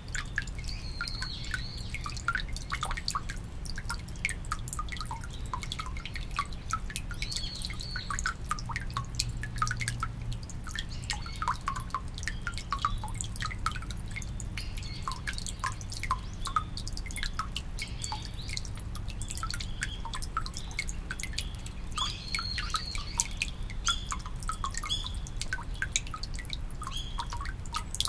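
Water dripping and trickling into a shinto shrine's temizuya hand-washing basin: a dense, irregular patter of drops with bright pitched plinks, over a steady low rumble.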